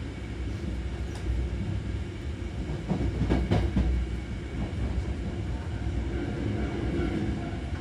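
Hankyu 3000 series electric train running, heard from inside the passenger car: a steady rumble of traction motors and wheels, with a few sharp knocks about three seconds in.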